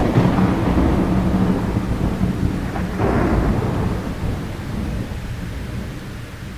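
Thunder rumbling over rain: it breaks in suddenly and loud, swells a second time about three seconds in, then slowly dies away.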